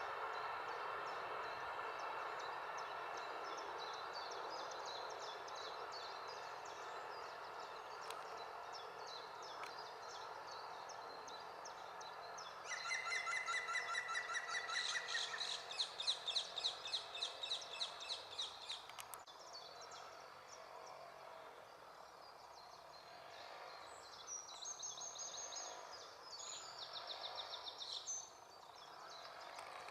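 Green woodpecker giving its laughing call, a fast run of evenly repeated notes about 13 seconds in, followed by more loud runs of rapid repeated bird notes. Other small birds chirp faintly over a steady background rush that fades during the first half.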